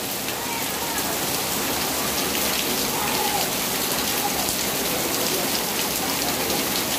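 Heavy downpour falling steadily: a dense, even hiss of rain on the ground and nearby surfaces, with many small drop impacts.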